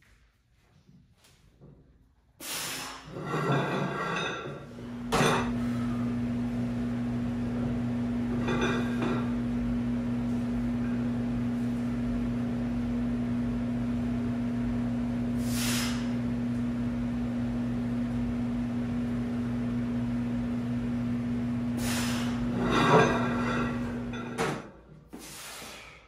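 A weightlifter's hard, sharp breaths every few seconds while he holds a strongman log overhead, the loudest near the end. Under them, a steady low hum sets in about five seconds in and stops shortly before the end.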